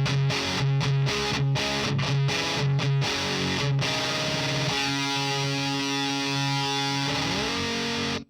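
Distorted electric guitar through a Diezel VH4 preamp pedal, playing short, choppy chugs on a low note. About five seconds in, a held chord rings out, rises in pitch near the end and cuts off abruptly.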